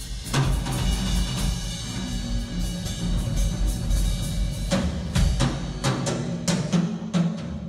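Drum kit played in free improvisation: a continuous low rumble of drum rolls, a hard strike with a long ringing tail just after the start, and a flurry of quick sharp stick hits from about five seconds in.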